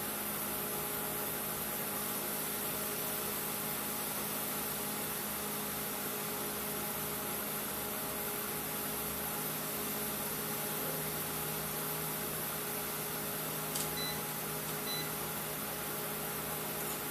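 Panasonic inverter microwave oven running with its cover off: a steady hum and fan noise with several steady tones. About 14 s in there is a click followed by two short beeps. The owner reads the measurement as the inverter not putting out enough voltage.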